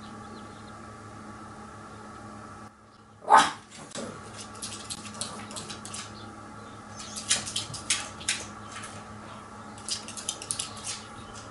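A dog barks once, sharply, about three seconds in, the bark falling in pitch. Scattered light clicks and scratches follow over a steady faint hum.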